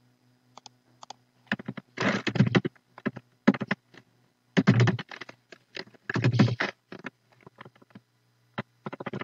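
Typing on a computer keyboard: quick bursts of keystrokes with scattered single key clicks between them, over a faint steady low hum.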